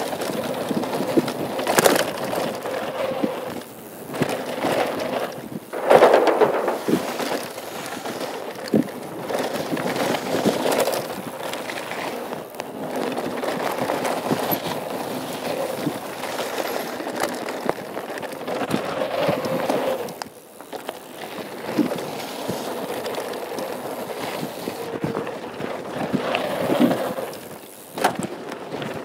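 2013 Norco Truax mountain bike descending fast on a packed dirt and gravel trail: tyres rolling and crunching on the dirt and the bike rattling, with sharp knocks over bumps. The heaviest knock comes about six seconds in.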